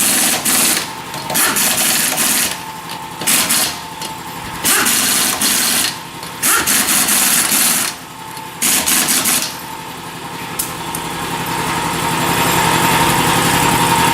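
Pneumatic air tool, most likely an impact wrench on the lug nuts, running in a series of short bursts a second or so apart. From about ten seconds in a vehicle engine runs steadily and grows gradually louder.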